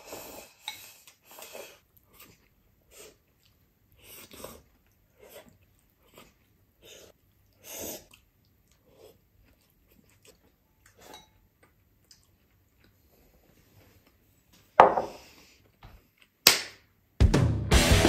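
A man eating a rice bowl: slurping from the bowl and chewing in short, quiet spells, with light clinks of dishes. Near the end come two sudden louder sounds, then music starts.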